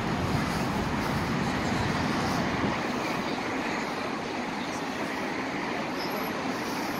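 Steady city street noise: traffic running by, with a crowd of people in the background.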